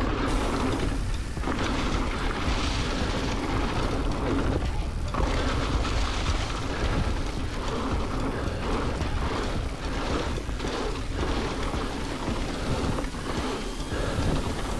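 Wind rushing over an action camera's microphone and mountain-bike tyres rolling over dry fallen leaves and packed dirt, with small knocks and rattles from the bike over bumps.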